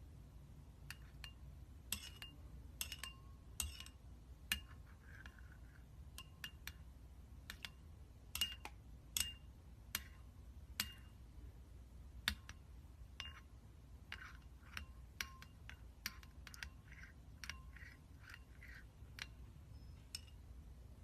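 Irregular sharp clicks and light clinks from a hard object being tapped again and again, many with a short ring at the same pitch, some louder taps standing out about 2, 4.5, 8.5, 9 and 12 seconds in.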